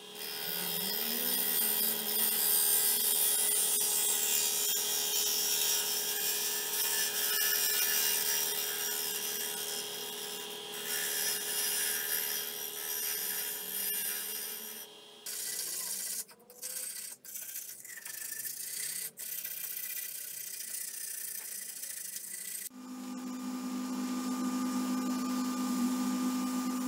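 Hollowing tool cutting inside a spinning algarrobo wood vase on a lathe, a steady loud hiss of wood being shaved. Past the middle the hiss breaks off abruptly several times, and near the end a steady hum of the running lathe sits under a softer rubbing hiss as the outside is sanded.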